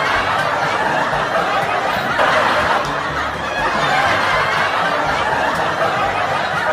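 A crowd of people laughing and chattering at once, many voices overlapping in a steady din.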